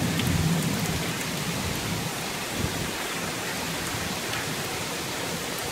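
Heavy thunderstorm rain pouring down steadily. A low rumble fades away over the first couple of seconds.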